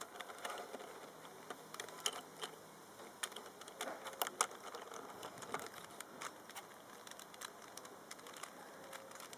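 Irregular light plastic clicks and clacks of a Rubik's cube being handled, its faces turning.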